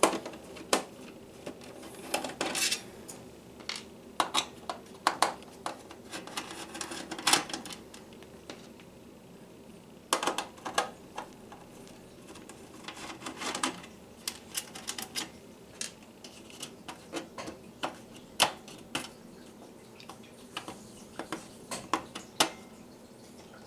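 Irregular metallic clicks, clinks and short scrapes of a Phillips screwdriver working on the screws of an ATX power supply's metal case to open it.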